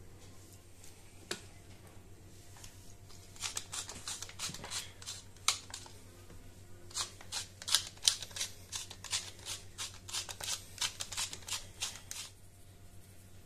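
A hand-turned spice grinder cranked in two spells of quick, crisp grinding clicks, the first starting about three and a half seconds in and the second ending shortly before the end. A single click comes about a second in.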